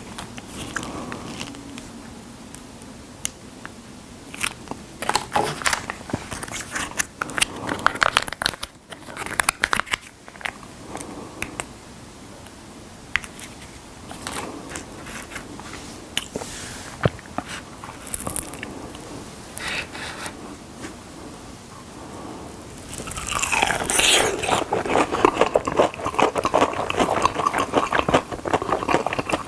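Fried chicken drumsticks being bitten and chewed with crisp crunches, scattered at first, then coming thick and fast from about three-quarters of the way in.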